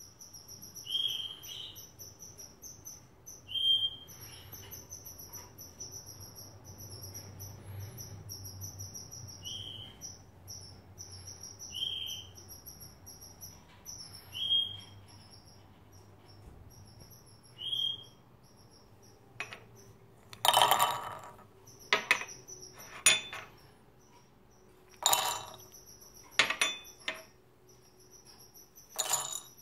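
Nuts poured by hand into a glass food-processor bowl, clattering against the glass in several bursts during the second half. Under it, a steady high-pitched chirping trill, with six short chirps in the first eighteen seconds.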